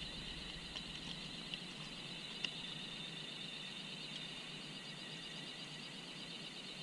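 Steady high chirring of insects, with a few faint clicks from the metal spreader light fixture being handled.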